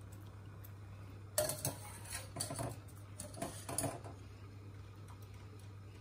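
Wire-mesh skimmer clinking and scraping against a steel pot as boiled watermelon rind pieces are scooped out, a cluster of knocks between about one and a half and four seconds in.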